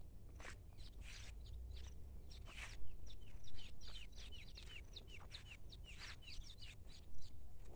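Small birds chirping in a rapid string of short, falling chirps over a low steady rumble, with a few louder sounds about three seconds in and near the end.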